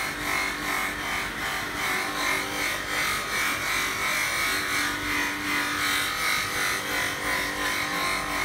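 Bench buffing machine running, its cloth buffing wheel rubbing against a car headlight lens as it is polished; a steady whir with a rubbing swish that swells and dips about twice a second as the lens is worked against the wheel.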